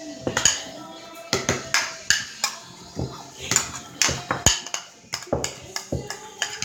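A utensil clinking and knocking irregularly against a bowl while slime is being stirred, several sharp hits a second with brief ringing.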